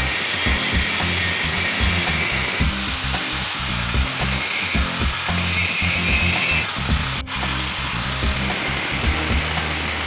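Background music with a steady bass line, with a power tool running underneath it. There is a brief break about seven seconds in.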